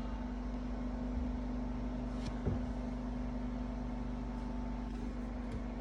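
Steady low mechanical hum with a faint single clink about two and a half seconds in.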